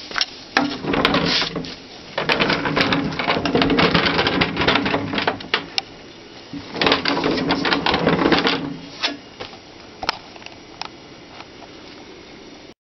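The ball chair's casters rolling and rattling on a hard floor as the assembled chair is moved about, in two long spells of clatter with sharp clicks between them.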